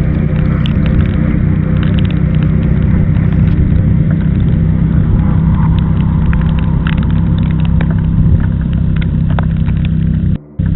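A car driving on the highway: steady engine hum and road rumble, with scattered small ticks. The sound cuts off abruptly near the end.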